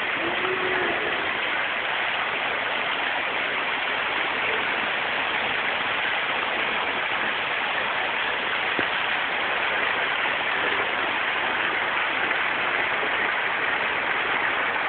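Steady rushing and splashing of a thin waterfall spilling down rocks into a small stream.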